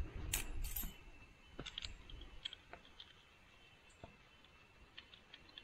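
Small metal clicks and ticks from a screwdriver turning in a Honda CRF250L cam chain tensioner as its spring is wound back into the housing. The clicks are sparse and irregular, after a short handling rustle near the start.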